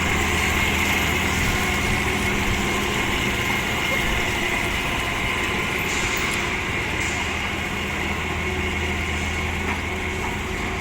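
A heavy construction machine's diesel engine running steadily, with a low hum and a thin steady high whine over it.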